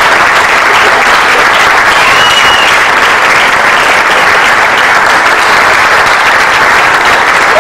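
Audience applauding steadily, with one brief high cheer about two seconds in.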